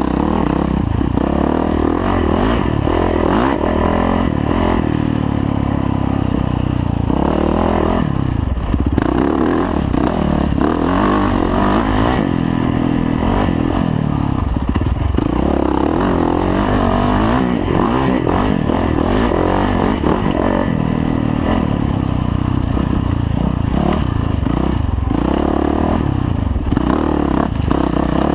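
2010 Yamaha YZ450F dirt bike's single-cylinder four-stroke engine running under load on the trail, its pitch rising and falling again and again with the throttle and gear changes.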